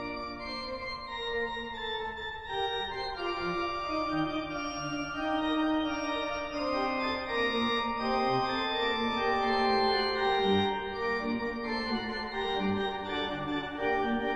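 Organ playing slow, sustained chords, each chord held for a second or two before moving to the next.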